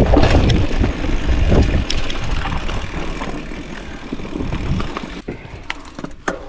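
Bicycle riding along a dirt trail: the tyres rumble and the bike rattles and clicks over bumps. It is loudest in the first couple of seconds and eases off after that.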